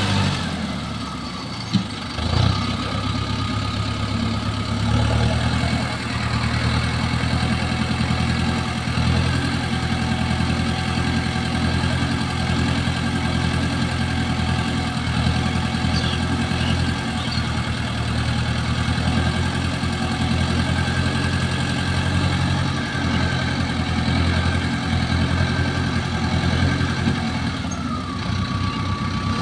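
Mahindra tractor's diesel engine running steadily at low revs while its hydraulics raise the tipping trailer bed, with a faint thin whine that slowly rises and then drops back near the end. A couple of short knocks about two seconds in.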